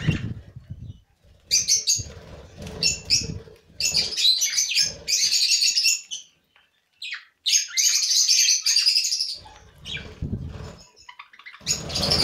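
A flock of budgerigars chirping and chattering in several bursts, with a brief lull past the middle, mixed with fluttering wingbeats. Near the end the whole flock takes off at once in a loud flurry of wings and chirps.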